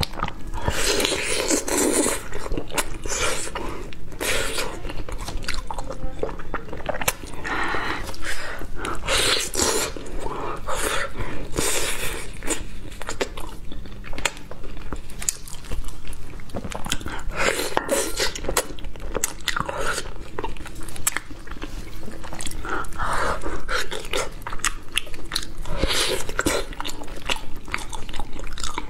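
Close-miked biting and chewing of braised pork trotter: a continuous run of wet mouth clicks and chewing bursts as skin and meat are bitten off and chewed.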